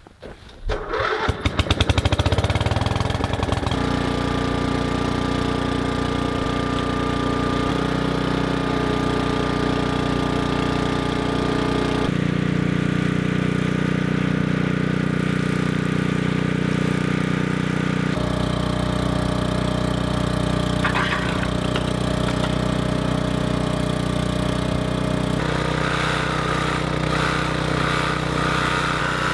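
Small gasoline engine running steadily, its note shifting abruptly a few times. A higher buzz joins it near the end.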